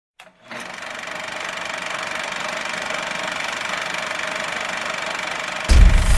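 Film projector sound effect: a steady whirring clatter that swells slowly, cut off near the end by a loud deep boom.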